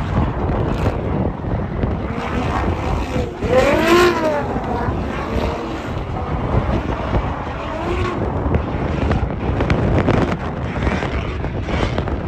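A car engine revs up and falls back about four seconds in, with a fainter rev near eight seconds, over steady wind buffeting the microphone.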